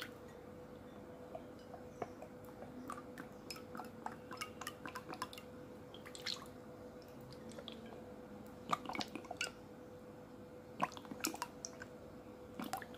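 Coconut oil being poured from a small steel bowl into a kadhai, with faint trickling and scattered light clicks, in clusters about two-thirds of the way through and near the end, over a faint steady hum.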